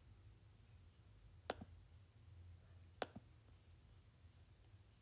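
Two faint taps on a tablet's touchscreen, about a second and a half apart, over a low steady hum.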